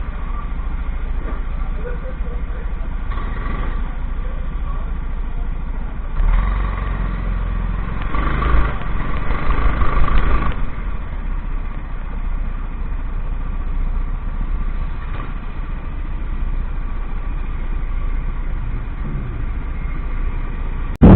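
Kart engines running steadily, growing louder for a few seconds about a third of the way in before settling back.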